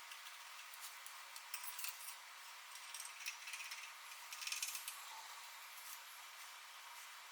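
Faint, scattered light clicks and rustles of small hard objects being handled, loudest in a cluster a little past the middle, over a steady hiss.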